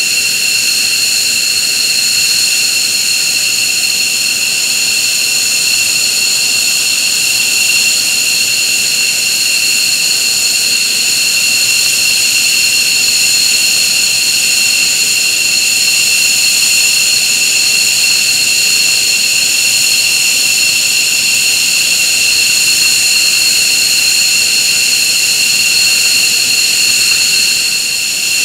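F-15J Eagle's twin Pratt & Whitney F100 turbofans idling on the ramp, a steady high whine of several shrill tones over the rush of the exhaust.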